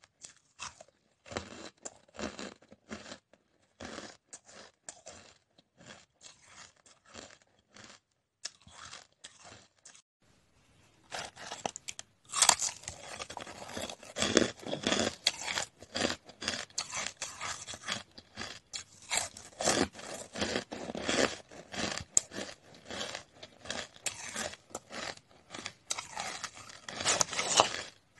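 Hard, crunchy ice being bitten and chewed close to the microphone, one crunch after another. The crunches come singly at first, then after a short lull they become louder and almost continuous.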